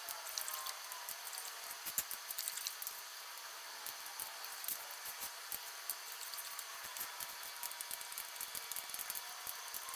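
Hand ratchet and torque wrench working the rocker-arm bolts of an LS engine's shaft-mount rocker system: light, irregular metallic clicks over a steady hiss.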